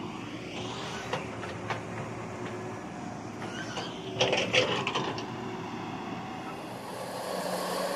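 Komatsu PC200 hydraulic excavator's diesel engine running under load, with sharp clanks and knocks from the working machine, the loudest a cluster about four seconds in. The engine note steadies and grows a little louder near the end.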